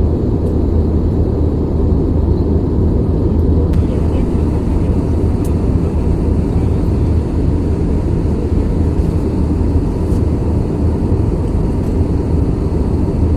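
Steady, loud deep rumble of a jet airliner's cabin noise in flight, from the engines and air rushing over the fuselage, heard from a passenger seat with the seatbelt signs off after the climb.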